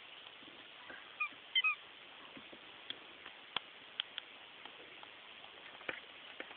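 Rubber microphone-shaped squeaky toy squeaking several times in quick succession about a second in as the foxes bite and play with it, followed by scattered light clicks and taps.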